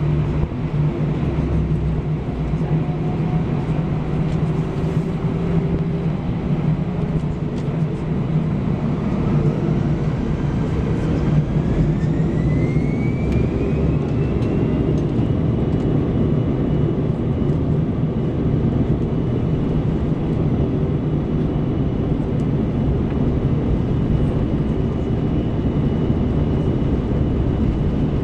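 Airbus A319 jet engines heard from inside the cabin: a steady rumble with a whine that rises in pitch from about nine seconds in and levels off about six seconds later, as the engines spool up to takeoff thrust.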